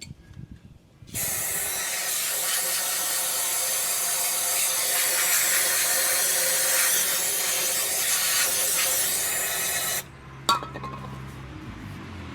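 Hissing spray flushing out the bearing bore of the axle housing, starting about a second in, running steadily for about nine seconds and cutting off sharply. A single sharp knock follows shortly after.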